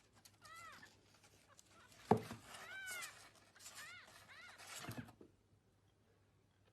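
A small animal giving several short, high, squeaky calls that rise and fall in pitch, with a couple of knocks; the sounds stop about five seconds in.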